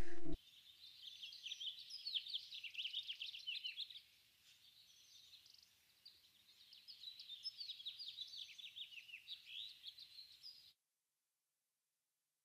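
Small birds chirping and twittering in quick, high, repeated chirps, in two bouts with a short lull between them, then cutting off suddenly a little before the end.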